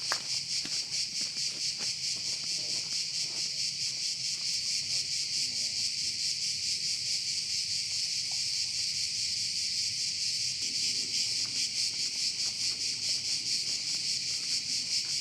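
Chorus of insects such as crickets, a dense high-pitched trilling that holds steady throughout, with a few faint clicks near the start.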